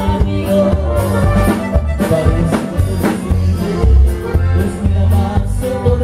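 A norteño band playing live: a bajo sexto strummed over bass and drums keeping a steady beat, with a man singing at the microphone.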